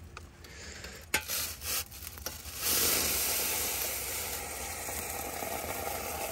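A few light knocks of a utensil on cookware, then about two and a half seconds in a steady sizzle starts in the hot pot of noodles and slowly fades.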